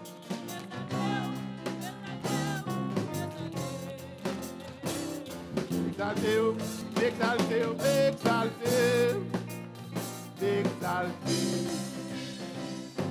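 Live worship music: voices singing over an organ, with drums keeping the beat.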